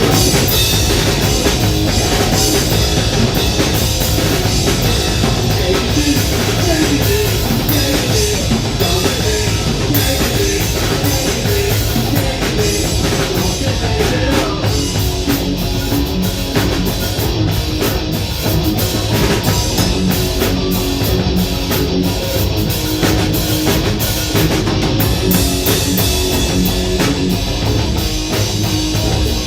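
Live rock band playing loudly, with electric guitar and a drum kit.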